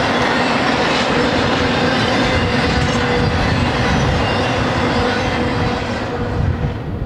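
Intermodal container train's freight cars rolling past on the rails: a steady rumble of steel wheels on track with a constant whine, fading away near the end as the train moves off.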